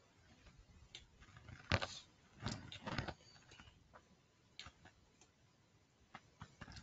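Faint, scattered clicks of a computer mouse as text is selected on screen, the loudest about two seconds in, over quiet room tone.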